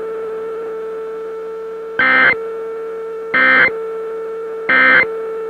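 Three short, screechy Emergency Alert System data bursts, about a second apart: the end-of-message code that closes an emergency alert broadcast. A steady low electronic drone runs underneath.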